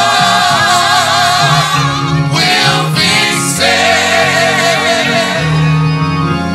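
Gospel choir singing, voices wavering on long held notes over steady low accompanying notes.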